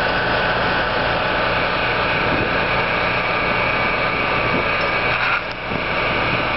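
Fire engine running steadily, its engine and water pump giving a constant hum with a high whine above it, briefly dipping near the end.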